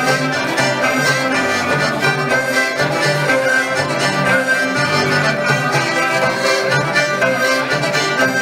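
Live folk dance band playing a tune with accordion and fiddles, at a steady beat.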